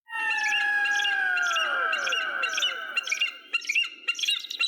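Bird-of-prey calls: a long whistled cry that slowly falls in pitch over about three and a half seconds, overlaid by a rapid series of short high chirps, about four a second, which go on alone near the end.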